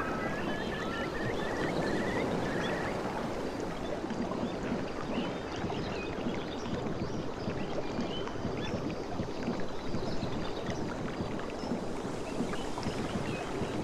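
Sea water washing and lapping along a beach: a steady churning wash with small splashes and fizzing.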